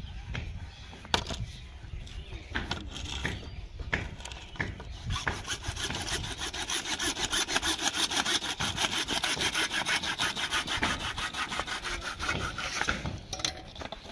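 A hand-held hacksaw blade sawing through white PVC pipe with fast, even back-and-forth strokes, starting about a third of the way in and stopping shortly before the end. Before the sawing there are a few scattered knocks and handling noises.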